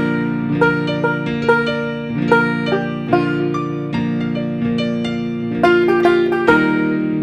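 Instrumental intro music: a melody of short, sharp-edged notes, about two a second, over held lower chords.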